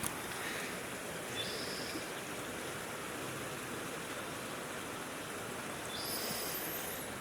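Steady rush of a flowing river, with a couple of faint high-pitched chirps about a second and a half in and again near six seconds.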